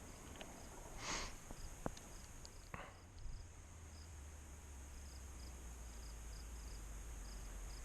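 Insects chirping in short, regularly repeated high pulses over a steady low hum, with a faint rustle about a second in and a couple of faint clicks in the first three seconds.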